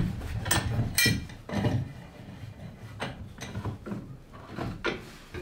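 A handful of separate sharp knocks and metal clinks, about five of them spread out, as steel bar clamps are handled and set against wooden carlin lamination pieces being dry-fitted.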